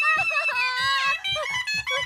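Suona (Chinese double-reed horn) playing a shrill melody with sliding, bending notes.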